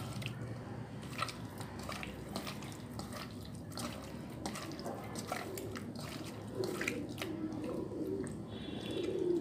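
Hand mixing raw chicken pieces in a bowl with salt and baking soda: irregular soft wet squelches and clicks as the meat is turned over.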